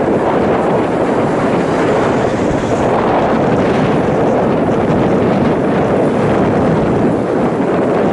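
Steady wind noise on the microphone, with the diesel engine of a passing Scania P340 six-wheel tipper truck running underneath.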